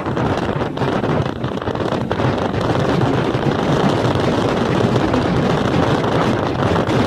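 Wind buffeting the microphone while riding on a moving motorcycle, a steady loud rushing with the bike's running and road noise underneath.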